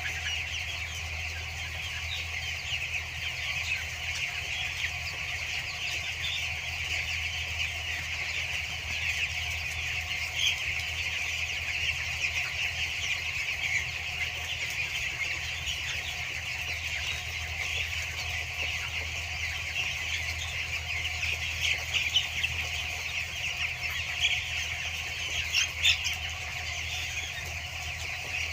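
A large flock of two-week-old broiler chicks chirping and peeping together in a dense, continuous chatter, with a few louder calls near the end, over a steady low hum.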